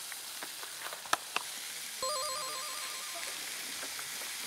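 Pork sizzling on a grill pan with a steady hiss, with a couple of sharp clicks about a second in. About two seconds in, a short electronic trill like a phone ringtone, warbling fast between two notes, comes in over the sizzle.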